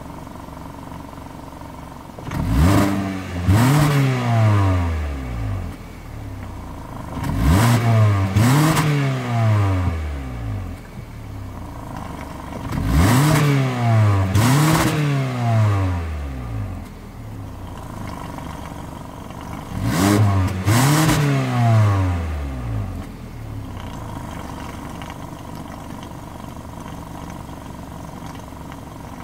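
2017 Hyundai Sonata's 2.4-litre GDI four-cylinder engine, heard at the exhaust tip, idling and being revved in four rounds, each two quick blips up and back down to idle. After the fourth round, a little past two thirds of the way in, it settles back to a steady idle.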